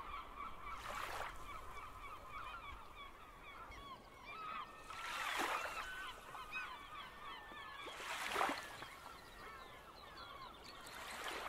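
A flock of birds calling in a dense, continuous chatter, with small waves washing in onto the shore about every three seconds; the washes in the middle are the loudest.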